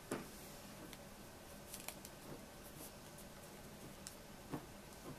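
Hands handling a glass mason jar and arranging its cloth topper: quiet fabric rustling with a few soft knocks, the loudest right at the start, others about two seconds in and near the end, over a faint steady room hum.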